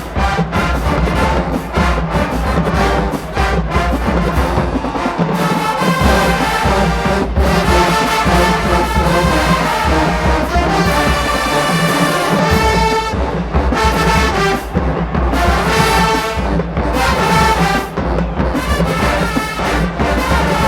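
College marching band playing: a loud, brass-heavy tune of trumpets and trombones over heavy low brass and drums, with the low end dropping out briefly twice.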